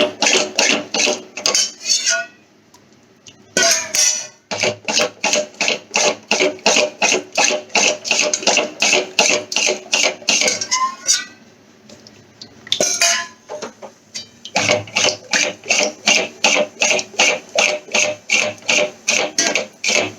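A spoon or spatula scraping against a pan while thick curry gravy is stirred and mixed. It goes in even strokes of about three a second, stopping briefly a few times.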